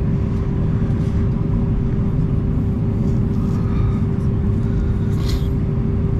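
Steady cabin rumble inside an Airbus A319 on the ground after landing, with a constant hum running through it. A brief high hiss sounds about five seconds in.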